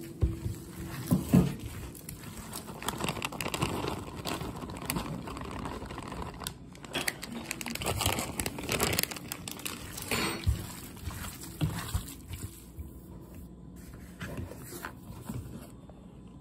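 Hands kneading raw ground beef and grated cheese in a bowl: irregular wet squelching and crinkling, with a few louder knocks. It quietens near the end.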